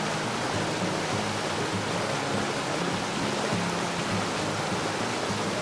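Steady rushing hiss of open-sea ambience: water and wind at a boat's side, with faint background music underneath.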